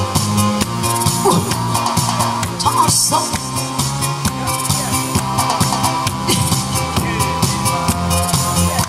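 Backing-track music played loud through a PA, with a drum kit and a steady beat.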